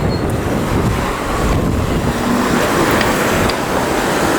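City street traffic: a steady noise of passing cars, engines and tyres close by.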